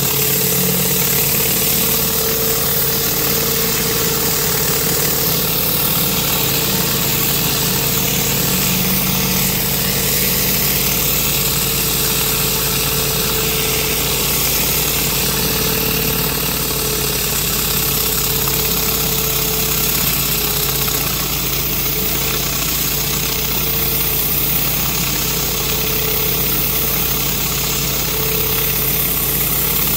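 Pressure washer engine running steadily, with the hiss of water jets from a rotary surface cleaner scrubbing concrete.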